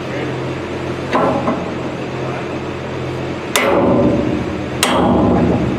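Spike maul striking a steel drift held against a steel dirt pan, three metal-on-metal blows that ring after each hit. A lighter blow comes about a second in, then two harder ones about a second and a half apart near the end.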